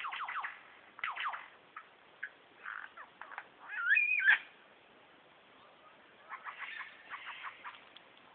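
Superb lyrebird singing a string of mimicked calls: quick falling notes near the start, a loud warbling whistle about four seconds in, then a rapid run of short notes near the end.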